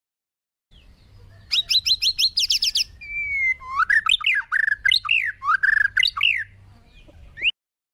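Bird song: a quick run of high, falling whistled notes, about six a second, then a string of varied whistled phrases that slide up and down. A short rising note comes near the end, and the sound cuts off abruptly.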